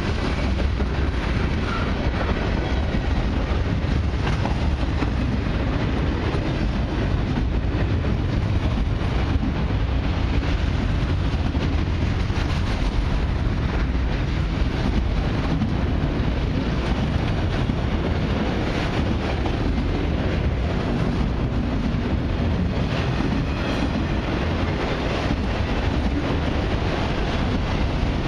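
Freight train of boxcars and autorack cars rolling past close by: a steady rumble of steel wheels on rail.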